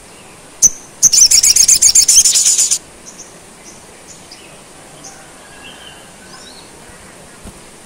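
Male olive-backed sunbird (sogon) gives one sharp high chip, then a loud, fast rattling trill of about nine notes a second lasting nearly two seconds. Faint high chips follow.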